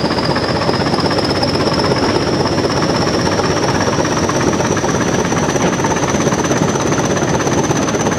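English Electric Class 20 diesel locomotive running under power, its eight-cylinder engine giving a loud, steady rattling rumble. Over it is a high turbocharger whistle that rises slowly in pitch, heard close up from the cab side.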